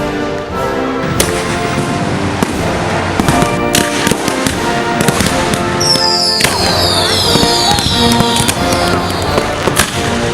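Fireworks show: aerial shells bursting with sharp bangs over music. In the second half a cluster of high whistles falls in pitch.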